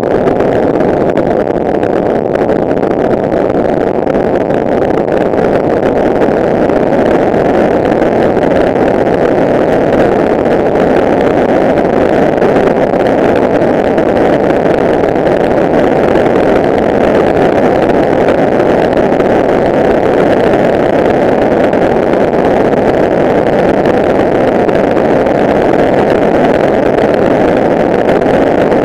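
Kawasaki ER-6n motorcycle cruising at a steady highway speed: a loud, even rush of wind on the action camera's microphone over the parallel-twin engine and tyre noise.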